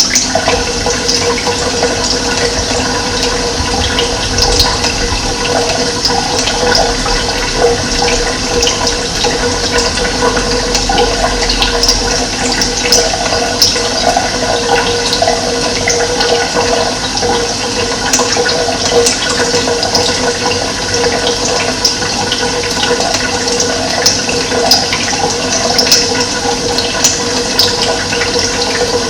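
Running water rushing steadily, with many small quick splashes on top.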